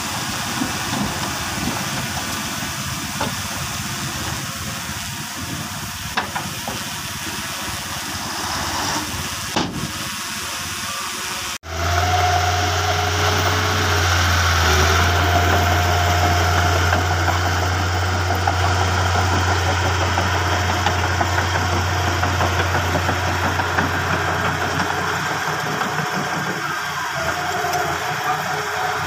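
Bulldozer's diesel engine running, with a hissy mechanical noise. About twelve seconds in, the sound breaks off for an instant and comes back as a louder, steadier engine drone with a deep hum.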